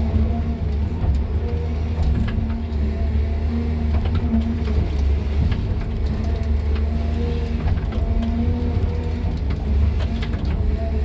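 Excavator's diesel engine running steadily, heard from inside the cab: a low rumble with a hum that rises and falls slightly in pitch as the machine works, and scattered light clicks.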